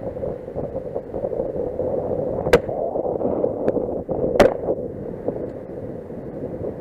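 Two shotgun shots about two seconds apart, a right and left at two passing ducks, over steady wind buffeting the microphone.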